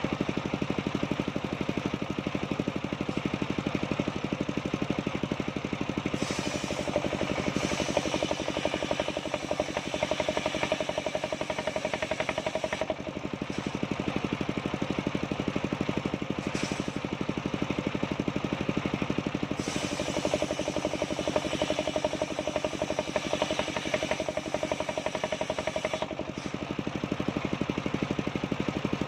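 Band sawmill running steadily, an engine-driven drone with a rapid even pulse. A higher hum swells for two stretches of several seconds as the blade cuts through sengon logs.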